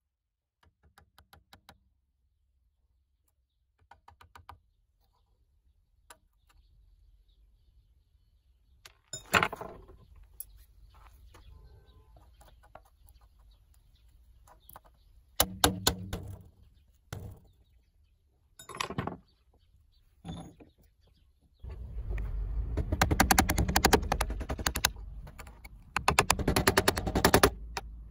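Metal punch being tapped against the brass screws of an old wooden saw handle to drive them out, heard as bursts of rapid metal-on-metal taps. The longest and loudest run of taps comes in the last six seconds, after faint ticking and scraping near the start.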